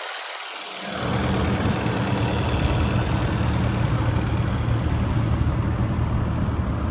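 Diesel engine of a Case TV370 compact track loader running steadily, its low hum coming in fuller and louder about a second in.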